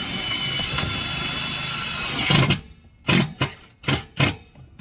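Power drill driving a pan-head screw: the motor runs steadily for about two seconds, then gives several short bursts as the screw is snugged down.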